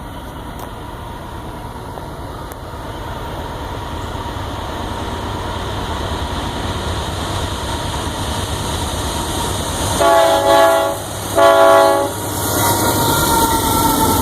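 Union Pacific locomotive approaching, its rumble growing steadily louder. About ten seconds in it sounds two blasts on its air horn: one of about a second, then a shorter one.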